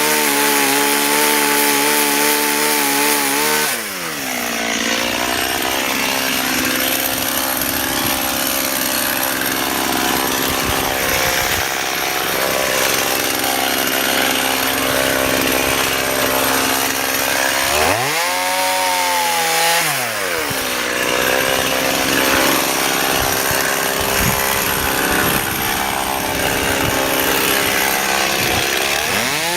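Stihl MS 180 (018) two-stroke chainsaw at full throttle cutting into a large hardwood trunk. The engine revs high for a few seconds, then drops in pitch as the chain bites into the wood and settles into a long steady cut. About 18 seconds in it briefly revs up and falls back into the cut, and near the end it revs up again.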